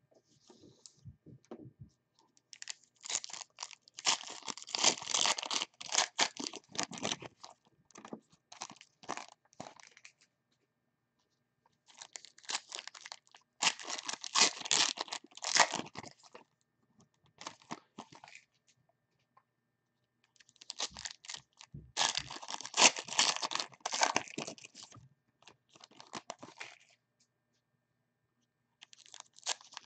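Plastic wrapping on a box of football trading cards being torn open and crinkled. The sound comes in crackly bursts of a few seconds each, with short pauses between.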